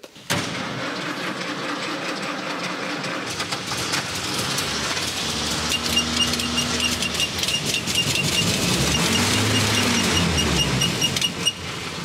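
Old carburetted Jeep engine running again after years of standing, fed with fuel poured straight into the carburettor. It catches about a second in and runs steadily, and a quick regular light ticking joins about halfway through.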